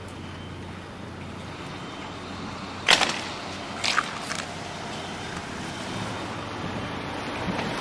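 Steady rush of wind on the microphone, with two sharp knocks about three and four seconds in.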